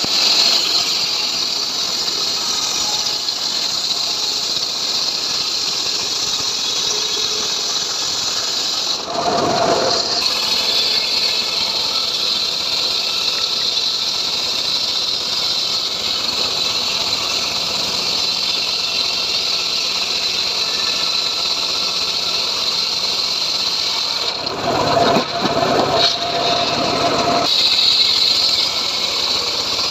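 Homemade srekel sawmill cutting sengon wood: the blade gives a steady high-pitched whine through the timber over its running motor. The whine drops away twice, briefly about a third of the way in and for a few seconds near the end, leaving a rougher, lower machine sound.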